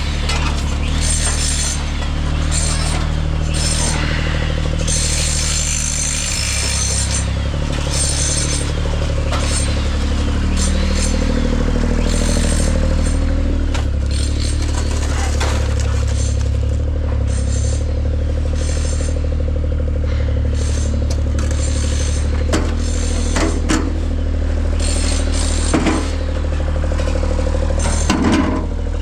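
A large engine running steadily, with a few short knocks and scrapes.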